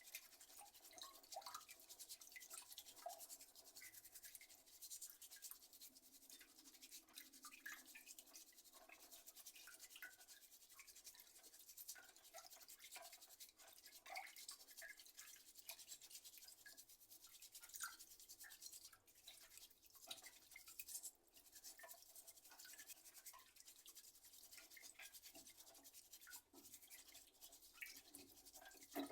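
Faint, steady scrubbing of keyboard parts with a small brush during washing: a fine, continuous scratchy rasp broken by many small irregular scrapes.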